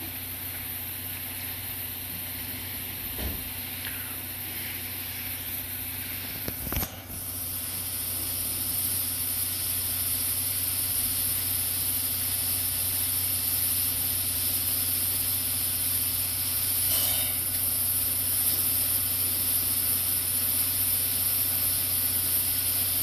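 C11 tank steam locomotive standing with steam hissing steadily, over a low steady hum. A sharp knock about seven seconds in, after which the hiss is louder.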